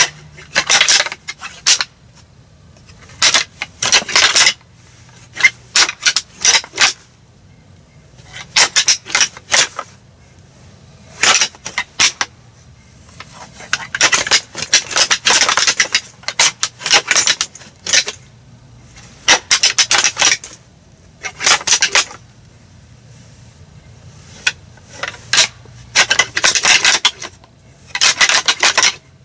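A pair of deer antlers clashed, ticked and ground together in a rattling sequence that imitates two whitetail bucks fighting. It comes in irregular bursts of clacking and grinding, each up to about two seconds long, with short pauses between them.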